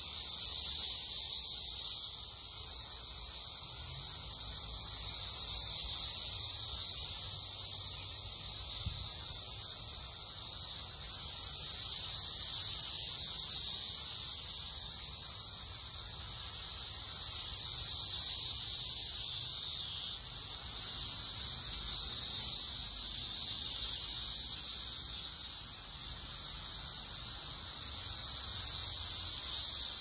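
Dense chorus of cicadas in a tree: a steady high-pitched buzz that swells and eases every few seconds.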